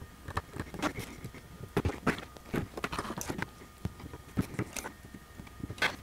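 Irregular light clicks and taps from a soldering iron, solder wire and a circuit board being handled while PowerPole connectors are soldered onto the board, over a faint steady high tone.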